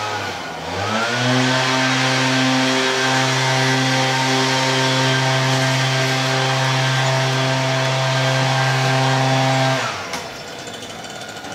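An engine drops in pitch, revs back up about a second in, then runs at a steady high speed and cuts off abruptly near the end.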